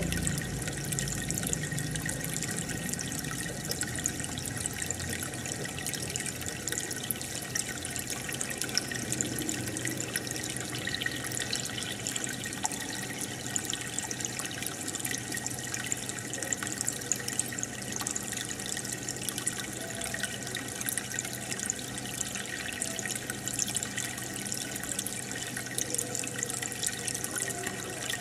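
Aquarium aeration: water bubbling and fizzing steadily as a stream of air bubbles rises through the tank, over a low steady hum.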